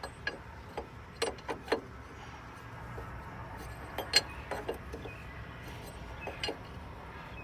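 Scattered light metallic clicks and clinks, about a dozen of them, from a hydraulic fitting and hand tools being handled, over a steady low rumble; the sharpest click comes about four seconds in.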